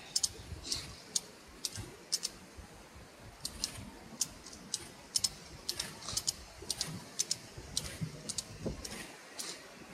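Hand ratchet strap being cranked under heavy load: the ratchet clicks sharply in an irregular series, about two or three clicks a second, as each stroke of the handle takes up the strap.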